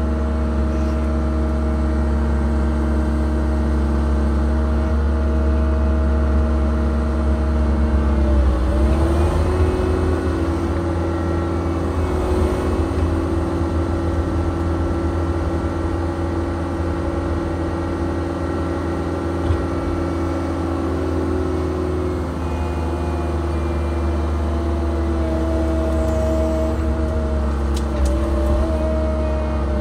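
Cat 306 mini excavator's diesel engine running under hydraulic load, heard from inside the cab as the boom and bucket are worked. The engine note dips briefly about eight seconds in, then holds a slightly higher pitch for about a dozen seconds before settling back.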